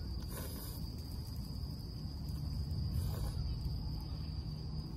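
Night insects trilling in one steady high-pitched tone over a continuous low rumble, with a woman faintly slurping ramen noodles a couple of times.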